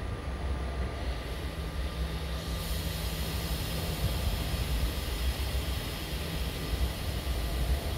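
Express train at a station platform: a steady low rumble with a faint steady whine over it. A hiss comes up about two and a half seconds in.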